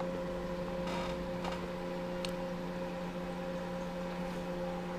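Room tone: a steady electrical hum, with a few faint clicks in the first couple of seconds.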